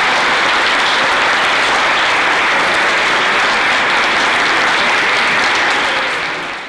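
Audience applauding steadily in a hall, fading out near the end.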